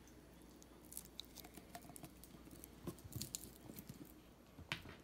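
Near silence, with faint scattered small clicks and light handling noises and one sharper click near the end.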